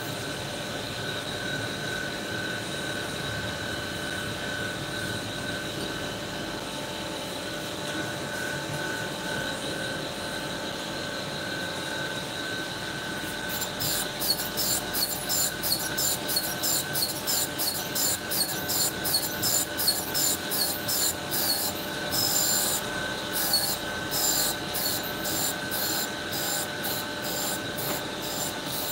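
Tool and cutter grinder running with a steady whine, its cup wheel resharpening a 45° chamfer bit. About halfway through, rapid repeated grinding contacts set in, about three a second, as the bit is worked against the wheel.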